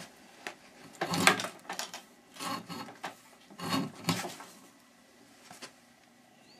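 Taped TV cable being pulled through a wire stripper's blade, rubbing and scraping in three short bursts about a second apart, then falling quiet.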